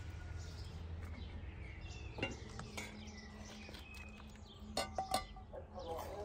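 Aluminium cooking pot and its lid clinking and knocking as the lid is lifted and the broth is stirred with a wooden spoon: one knock about two seconds in, then a quick cluster of metallic clinks with a brief ring about five seconds in. Birds chirp faintly in the background.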